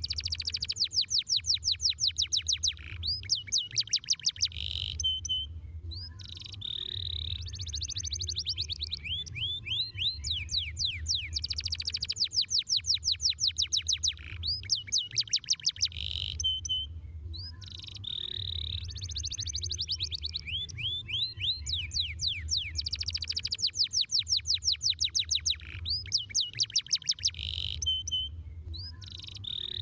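Domestic canary singing: very fast, high rolling trills in phrases of several seconds, with short pauses between them. A steady low hum runs underneath.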